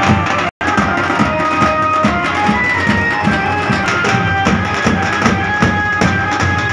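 Street drum band of large bass drums and snare-type drums playing a fast, steady beat, about three low strikes a second, with a high melody line of short held notes over it. The sound drops out briefly about half a second in.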